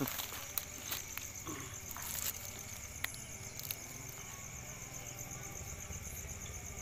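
Night insects chirring steadily in a high, finely pulsing trill, with a few faint clicks and rustles from close handling in the first half.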